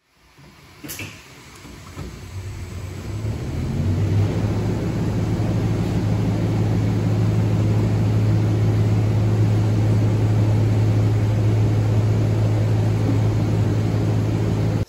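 A steady mechanical hum from a motor or pump running, with a low even drone that builds up over the first few seconds and then holds steady. One sharp click about a second in.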